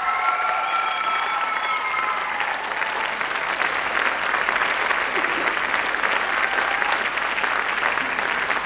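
Audience applauding, with a few long cheering calls over the clapping in the first couple of seconds.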